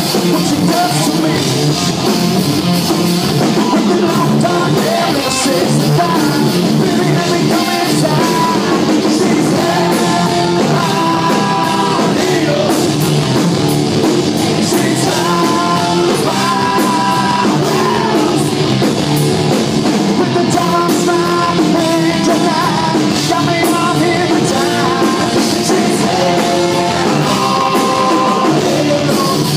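Rock band playing live, loud and steady: drums, guitars and a lead singer.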